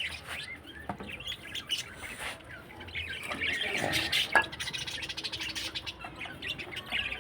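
Small birds chirping, many short, irregular chirps and squeaks overlapping throughout.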